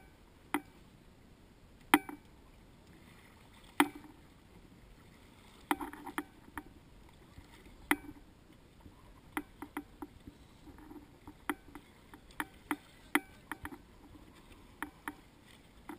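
Irregular sharp knocks and slaps on a small boat. A few loud ones come a second or two apart, then quicker, fainter ones follow in the second half.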